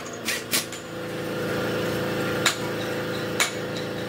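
Four sharp hammer blows on metal: two quick ones at the start, then two more spaced about a second apart. A steady mechanical hum comes in about a second in and runs under them.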